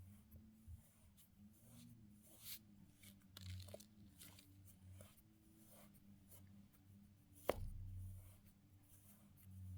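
Kinetic sand being worked: faint, scattered soft crunching and scraping strokes, with one sharp click about seven and a half seconds in, over a steady low hum.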